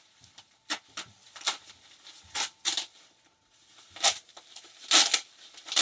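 Plastic wrapping crinkling and rustling in short, sharp bursts as it is handled and pulled open, the loudest bursts about four and five seconds in.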